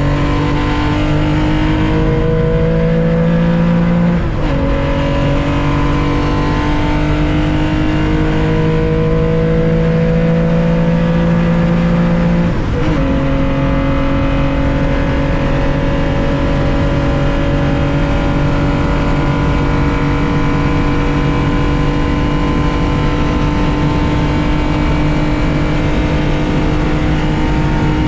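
1965 Porsche 911 2.0's air-cooled flat-six at full throttle, heard onboard. The engine note climbs and drops at two upshifts, about four seconds in and again near thirteen seconds, then holds nearly steady at high revs for the rest, flat out.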